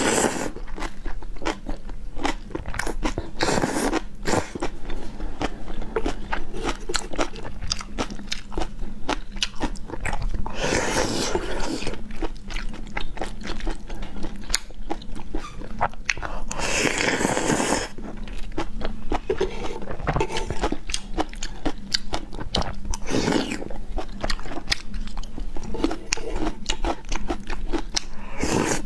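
Close-miked eating of saucy noodles: wet chewing and mouth clicks throughout, broken about five times by a long slurp lasting a second or so. A faint steady low hum runs underneath.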